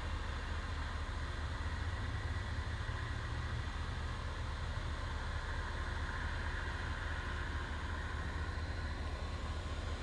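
Steady low engine hum with a faint hiss above it, unchanging throughout.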